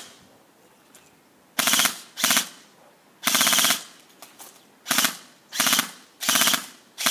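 Battery-powered airsoft M4 CQB rifle firing short full-auto bursts, each a rapid run of shots. There are about seven bursts in quick succession, the last starting right at the end.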